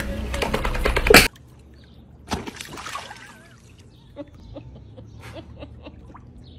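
About a second of loud rustling and knocking that cuts off abruptly, then quiet sloshing of pool water around wading dogs, with one soft thump and a few faint chirps.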